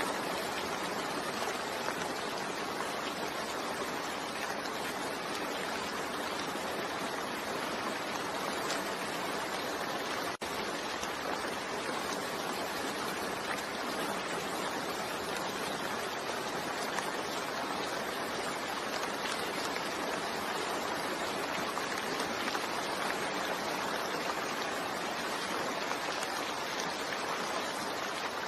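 Steady rain falling, an even rushing patter with no thunder, broken by a momentary dropout about ten seconds in.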